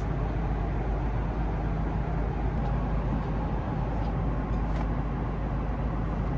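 Steady cabin noise of an Airbus A330-200 airliner in cruise: a constant low rumble with a hiss of airflow above it.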